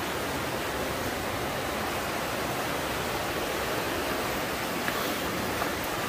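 Steady rushing of a fast mountain stream, the Partnach, running over rocks and rapids in a narrow gorge.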